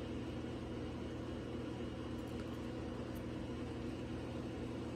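Steady low background hum, with a couple of very faint ticks about halfway through.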